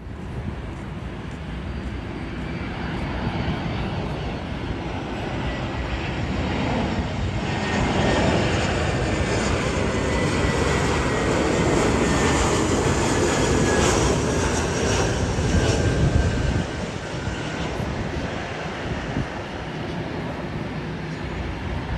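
Airbus A321 jet airliner on its landing approach: a steady engine rush that swells as it passes and is loudest in the middle, with a thin engine whine gliding slowly down in pitch, then eases off suddenly a few seconds before the end.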